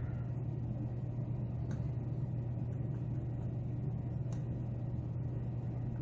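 A steady low hum, with a couple of faint ticks about two and four seconds in from a lock pick probing the pins of a pin-tumbler lock.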